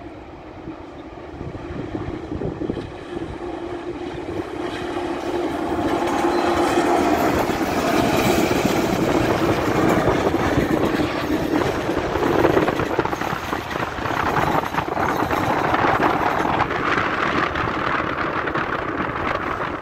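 A GO Transit passenger train at speed, an MP40PH and an MP54AC diesel-electric locomotive double-heading eight bilevel coaches at about 87 km/h, approaching and passing close by. The sound grows louder over the first several seconds as it nears, then stays loud and steady as the locomotives and coaches go by.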